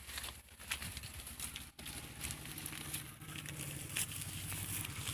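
Footsteps rustling and crackling through tall dry grass and weeds, over a low steady rumble.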